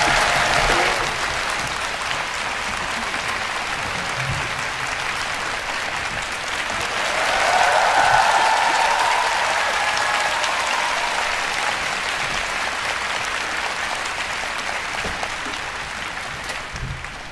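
Audience applauding the soprano soloist. The applause swells about halfway through and dies away near the end.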